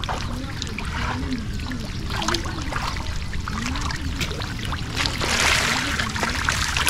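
Shallow water splashing and trickling as masses of small tengra catfish thrash at the surface and are scooped by hand into a pan, with many small splashes and a louder burst of splashing about five seconds in. A faint wavering low hum runs underneath.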